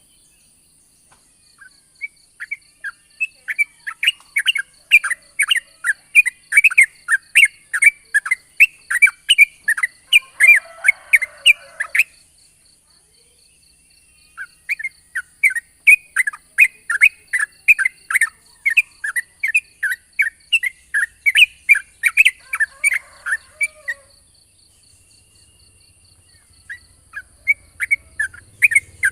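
Yellow-vented bulbul (trucukan) song: long, fast runs of short chattering notes, about three a second. The runs break off twice, near the middle and again later on. A steady, faintly pulsing high hiss runs underneath.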